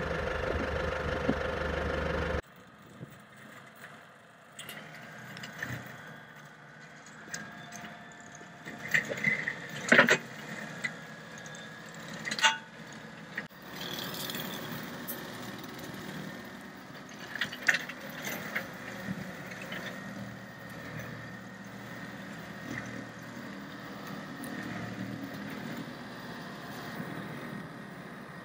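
Tractor-driven Griffith Jungle Buster chain slasher running, its rotor of steel cutting chains turning as it cuts gorse and rushes. It is loud and steady for about the first two seconds, then drops suddenly to a quieter running sound broken by scattered sharp cracks and knocks.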